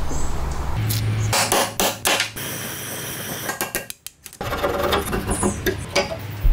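Hammer blows on a steel pin punch, driving a rust-seized pin out of a vintage stapler's cast-iron frame held in a vise. Several sharp metal strikes with brief ringing, then a short pause and a few lighter clinks of rusty metal parts.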